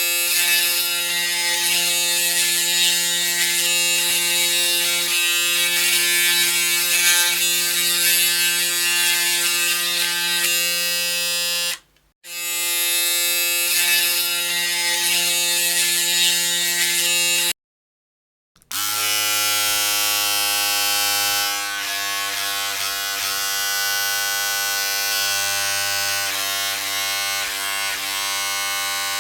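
Electric shaver buzzing steadily. It cuts out briefly twice, about 12 and 17.5 seconds in, and after the second gap it comes back at a lower pitch.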